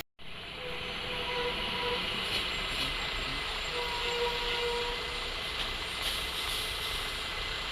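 Heavy trucks running at the roadside, a steady mixed engine and road noise with a faint held tone twice.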